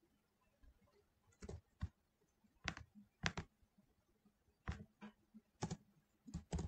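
Scattered computer mouse and keyboard clicks, a dozen or so single sharp clicks at uneven intervals.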